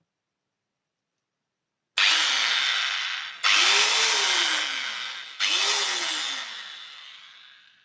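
Bosch GWS 600 angle grinder switched on three times in quick succession, starting about two seconds in. Each time the motor whines up to speed and then coasts down as the switch is let go. The third run winds down over about two seconds, a smooth sound.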